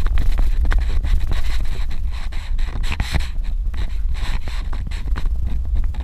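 Suzuki Jimny driving on a dirt road: a steady low rumble with the scrape of tyres on loose ground and frequent small knocks and rattles.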